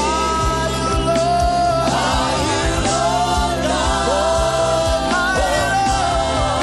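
Live gospel worship music: sung vocals, with a choir or backing singers, over a band keeping a steady beat.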